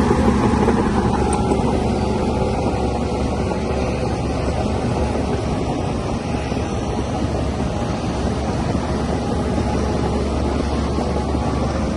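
DH17C3 bulldozer's diesel engine running steadily under load, a constant low drone with mechanical clatter over it.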